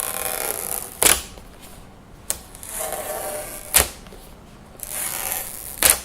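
Cardboard and plastic product packaging being pulled open by hand: rustling and scraping broken by four sharp snaps, the loudest near the end.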